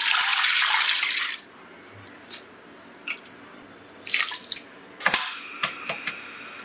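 Water poured from a glass bowl into a pot, a steady splashing that stops about a second and a half in. It is followed by scattered small splashes and knocks as raw chicken feet are tipped off a spatula into the water.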